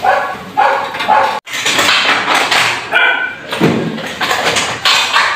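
A dog barking repeatedly, short barks following one another every half second or so.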